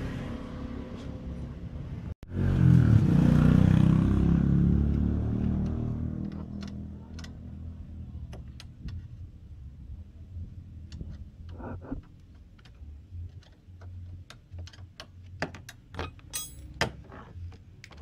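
A vehicle engine's low rumble swells about two seconds in and dies away over the next few seconds. It is followed by scattered metal clicks and clinks of a combination spanner on the scooter's body-panel bolts.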